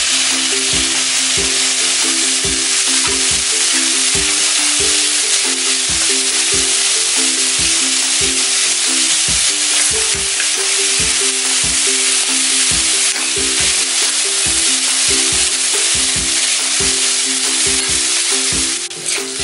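Shredded cabbage and mixed vegetables sizzling hard over a high gas flame in a stainless steel wok, stirred with a steel spatula that scrapes and taps against the pan many times. A simple tune plays underneath.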